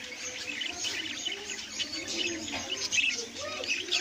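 A flock of budgerigars chattering together: a dense, continuous stream of short chirps and warbles.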